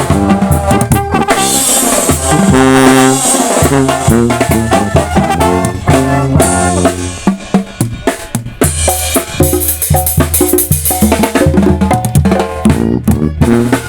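Sinaloan banda playing: brass horns carry the melody over a steady beat of drums and snare, easing off briefly about halfway through.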